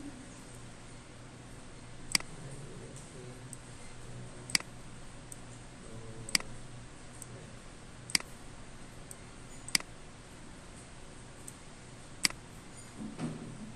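Computer mouse button clicking six times, single sharp clicks spaced a second or two apart, over a low steady hum.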